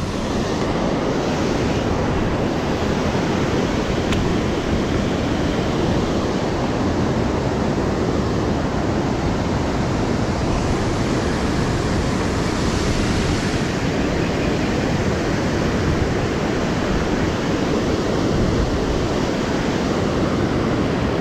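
Steady rush of whitewater tumbling over a dam's spillway into the river, with some wind on the microphone.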